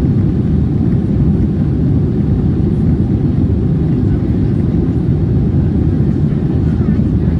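Steady, deep rumble of engine and airflow noise inside the cabin of an Airbus A321 climbing after takeoff, heard from a window seat over the wing.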